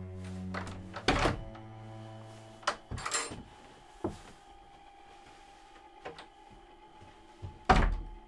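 Low droning film-score music, which stops about three seconds in, with knocks and thuds of a wooden door being opened and then shut; the loudest thump comes near the end as the door closes.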